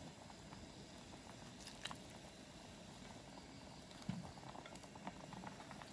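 Faint steady background hiss with scattered small clicks and taps, and one low knock about four seconds in.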